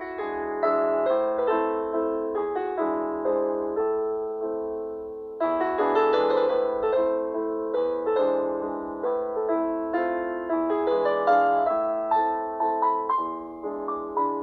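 Outro background music: a gentle piano melody with chords, its notes struck and fading.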